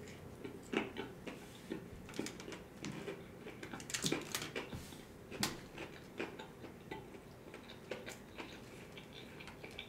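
A man chewing a bite of fried chicken sandwich close to the microphone. Irregular small clicks and crunches, with a few louder ones about four and five and a half seconds in.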